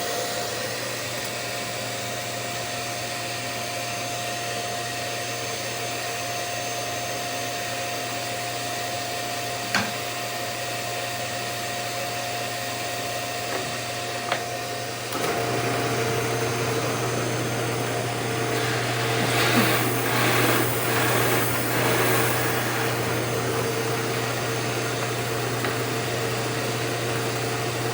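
Cyclone dust collector running steadily with a constant whine. About fifteen seconds in, the drill press motor starts and adds a lower hum, and a few seconds later comes a rougher, louder stretch as the hinge-boring bit cuts into the wood under the dust box.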